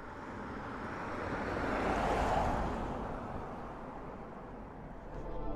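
A car approaching and passing on a wet road: its tyre and engine noise swells to a peak about two seconds in, then fades away.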